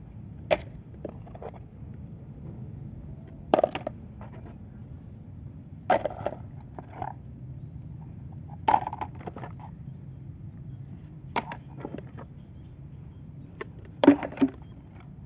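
Hard objects, likely plastic toy vehicles, knocking and clattering as they are handled and set down. The short clatters come every two to three seconds over a low steady hum, and the loudest cluster is near the end.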